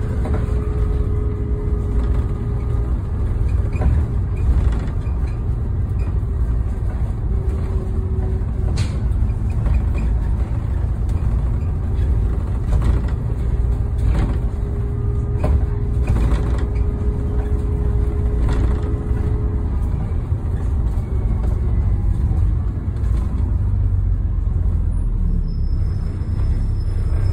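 Stagecoach double-decker bus driving, heard from the top deck: a steady low engine and road rumble with a faint humming whine that stops about two-thirds of the way through, and occasional knocks and rattles.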